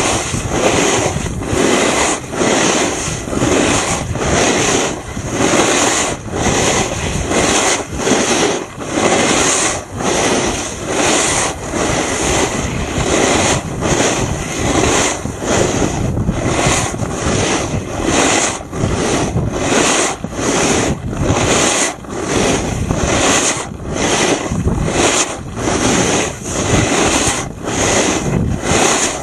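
Edges scraping and hissing over hard, icy early-season snow as a rider slides downhill at speed, with wind rushing over the microphone. The scrape swells and fades in repeated strokes about once a second as the rider turns.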